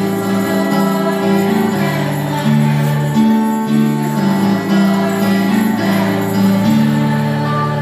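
Christmas music with jingle bells ringing along to backing music of held chords that step from note to note.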